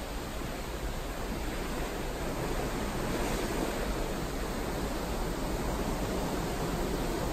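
Steady rushing of seawater churning along the hull of a moving cruise ship, with a low rumble underneath.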